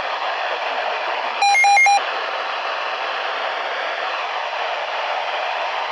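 Steady hiss of radio static from an off-air weather radio broadcast between spoken messages. About one and a half seconds in comes a short, louder electronic beep in three quick pulses.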